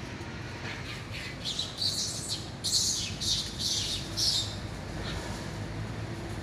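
A run of short, shrill animal calls, about seven in under three seconds, then stopping.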